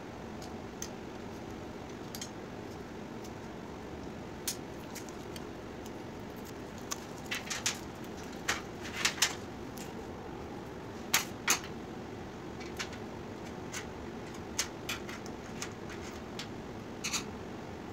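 Scattered light clicks and taps of LED backlight strips being handled and set onto an LED TV's sheet-metal back frame, grouped around the middle and again near the end, over a steady low hum.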